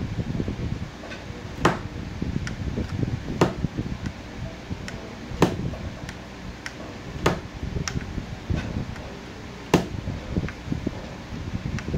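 Sharp clicks and taps every second or two over a low rumbling background, from soldering-iron and hand work on a printer's power-supply circuit board.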